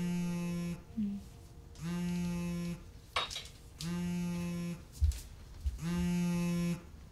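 Telephone ringback tone heard through a phone handset: a steady buzzy tone sounding four times, each just under a second long and repeating about every two seconds, the call ringing at the other end. A few faint knocks fall between the rings.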